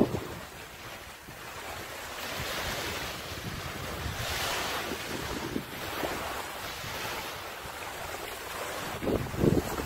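Coastal breeze blowing across the phone's microphone, with small waves washing on the sand; a louder rush around the middle and low buffeting gusts near the end.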